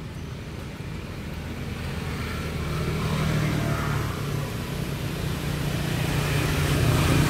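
An engine running with a low hum, growing steadily louder.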